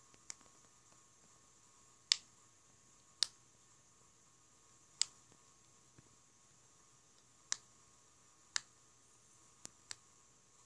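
Bubbles of a silicone pop-it fidget phone case being pressed with a finger, one at a time, each giving a sharp pop. There are about eight pops spaced a second or two apart, with two in quick succession near the end.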